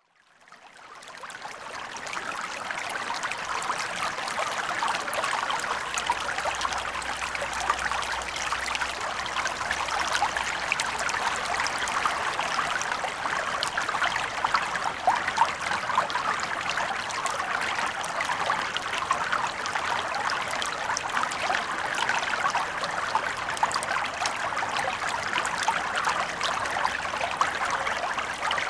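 Water flowing steadily with a busy, splashy babble. It fades in over the first two seconds, then holds level.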